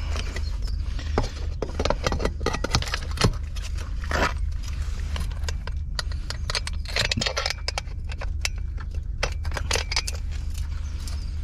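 Metal clinks, knocks and scrapes of a transom wheel leg and its locking pin being handled and slotted into the boat's transom bracket, with footsteps crunching on gravel.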